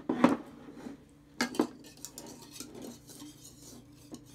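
A wire whisk and dishes clinking against a ceramic mixing bowl of beaten egg: a few sharp knocks in the first second and a half, then lighter, irregular rattling of the whisk in the bowl.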